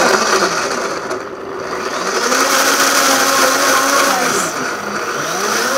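Countertop blender motor running, puréeing chopped onion, garlic, jalapeño and cilantro with oil and water into a green paste. The motor pitch starts low, climbs and holds steady from about two seconds in, then dips briefly and climbs again near the end.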